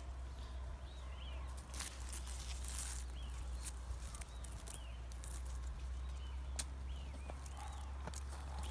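Bramble leaves and stems rustling and snapping in short clicks as a hand pushes in among the berries. Faint high bird chirps repeat every second or so behind it.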